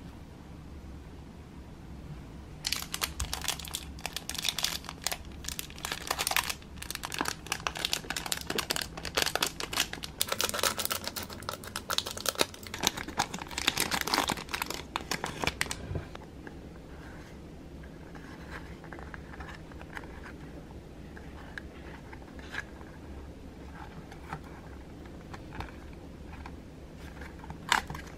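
Thin clear plastic bag crinkling and rustling as it is handled and opened, a dense stretch lasting about thirteen seconds. After that come only light, scattered handling sounds of a small paper box, with a single sharp click near the end.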